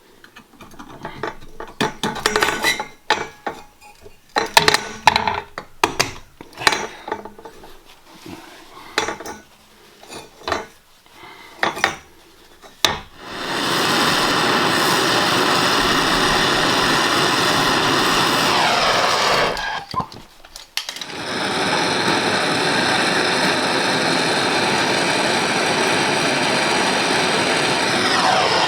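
Clicks, taps and scrapes of copper pipe fittings being handled, then a handheld soldering torch burning with a steady loud hiss while copper joints are sweated. The torch runs about six seconds, cuts off for about a second, then lights again and keeps going.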